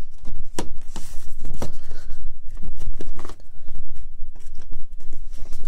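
Handling noise: a string of scrapes and light clicks as plastic Blu-ray cases are moved on a shelf and the phone is shifted in the hand, over a steady low rumble.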